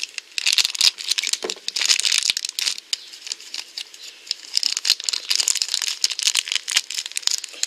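Crinkly plastic blind-bag wrapper being crumpled and pulled open by hand, in irregular crackly bursts with small clicks.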